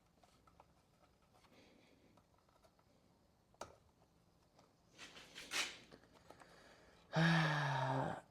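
Holzfforma G3120 chainsaw pulled over on its recoil starter to test a newly fitted 272XP ignition coil: a shorter pull about five seconds in, then a loud, about one-second whirring turn-over near the end, its pitch sagging slightly before it cuts off.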